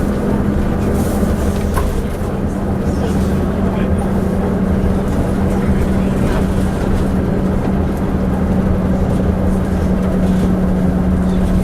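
Leyland Atlantean double-decker bus's diesel engine running under way: a loud, steady drone with a strong low hum, and a few faint knocks now and then.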